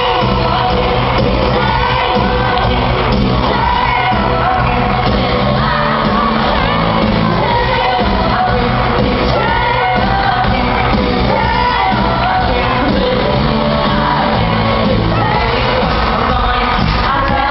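Loud live pop concert music in a large arena: an amplified band with a repeating bass line and singing, with shouts and whoops from the crowd.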